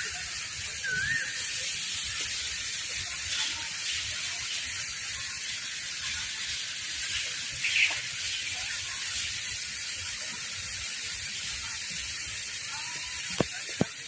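Evening insect chorus, a steady high-pitched hiss, with a few short bird chirps and two sharp clicks near the end.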